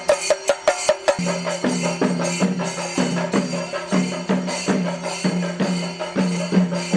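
Kerala chenda drums beaten with sticks: a fast, dense run of strokes that about a second in settles into a steady beat of about two strokes a second.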